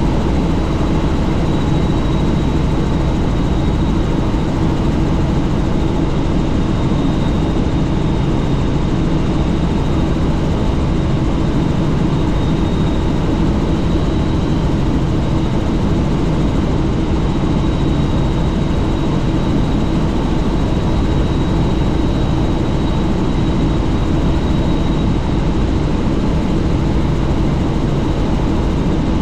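Helicopter in flight heard from on board: steady, loud rotor and engine noise, with a thin high whine running over it.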